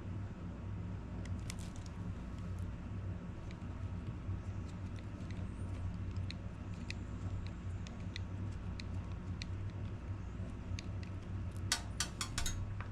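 Scattered light clicks and taps of a small Phillips screwdriver and small plastic parts being handled while unscrewing an RC crawler's steering servo, with a quick run of clicks near the end, over a steady low hum.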